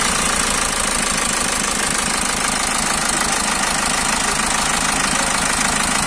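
Hyundai Santa Fe common-rail diesel engine idling with a steady diesel clatter, just after being started. The engine smokes heavily and runs rough, which the mechanic takes in part for a sign of leaking compression.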